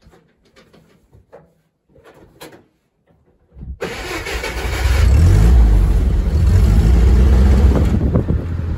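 Faint clicks and knocks, then about three and a half seconds in the GAZ-69's four-cylinder side-valve engine starts. It builds to a loud, low, steady run within about a second.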